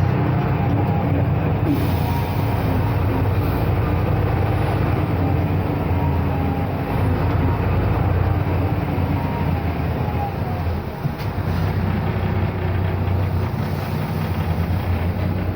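Ikarus 260 bus's diesel engine running steadily with a low, even rumble, heard from inside the bus.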